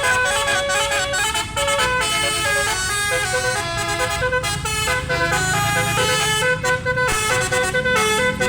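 Bus 'telolet' basuri horn, a multi-tone horn playing a fast melody, the notes changing several times a second. A low drone joins about halfway.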